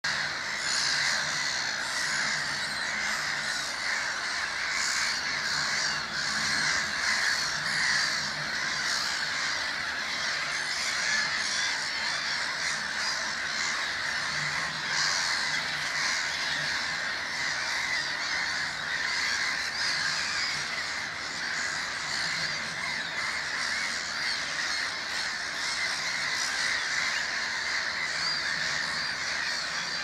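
Gull colony calling: many overlapping calls from a crowd of birds form a steady, unbroken chorus.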